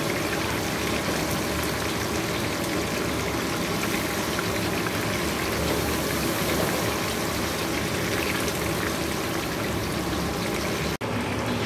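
Steady hissing, watery kitchen noise, as from wok cooking or water running, with a split-second dropout about a second before the end.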